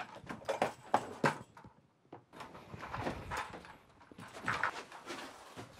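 Footsteps and several sharp knocks in the first second and a half, then, after a brief lull, rustling and clatter as an LED light panel on its light stand is grabbed and moved.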